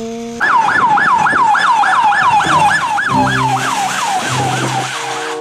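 Police siren in a fast yelp, its pitch rising and falling about three to four times a second, after a short rising tone at the start.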